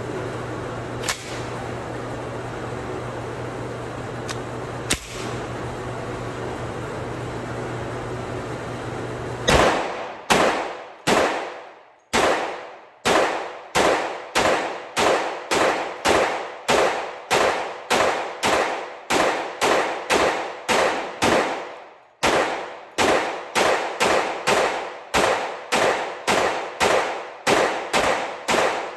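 A B&T APC10 10mm Auto firing a long string of semi-automatic shots at about two a second, each shot trailing off in an echo, with one short pause about 22 seconds in. Before the shooting starts there is a steady ventilation-like hum with a few small handling clicks.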